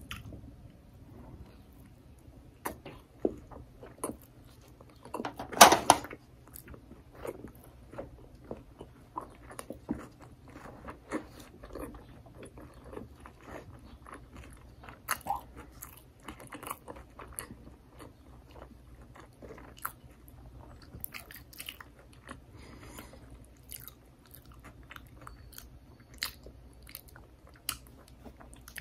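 A person chewing and biting sushi rolls: short mouth sounds and small clicks scattered throughout, with one louder burst about six seconds in.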